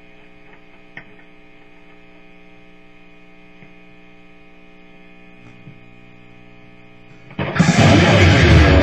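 Steady hum and buzz from an idling electric-guitar amplifier, with a faint click about a second in. About seven seconds in, loud distorted electric guitar music comes in suddenly.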